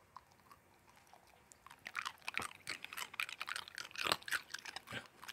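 A dog chewing and crunching something hard, a quick run of crunches starting about two seconds in.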